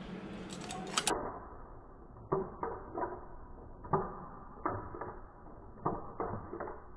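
Handheld sieve tapped repeatedly to sift cocoa powder: sharp taps in twos and threes, roughly every half second, with a few quicker clicks about a second in.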